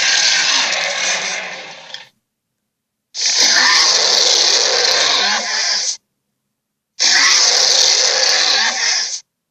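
Giant-ape monster roar sound effects: three separate loud, rough roars with clean silent gaps between them. The first trails off about two seconds in, then two more of about three seconds each follow.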